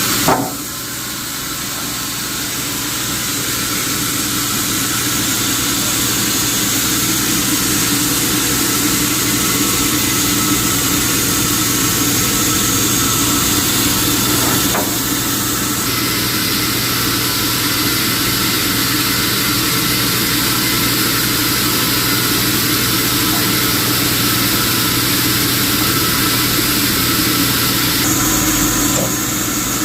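Sawmill machinery running steadily, a constant engine-like hum under a high hiss, with a sharp click just after the start.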